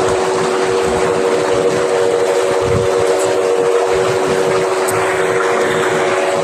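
Pumped water gushing from a large outlet pipe into a water tank, with the steady hum of the belt-driven electric pump running underneath.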